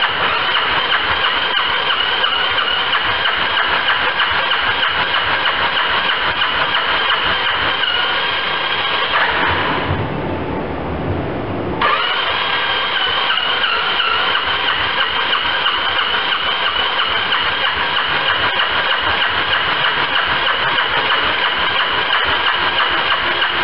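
Single-cylinder diesel engine of a Kawasaki KL650 HDT military motorcycle turning over with a steady high-pitched whine. About ten seconds in, the whine drops out for about two seconds, leaving a lower sound, then comes back with a click.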